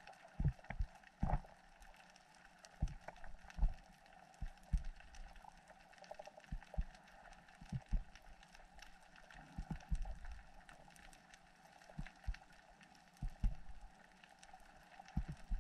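Faint underwater reef sound picked up through a camera housing: irregular scattered clicks and crackles, with a few soft low knocks, over a faint steady hiss.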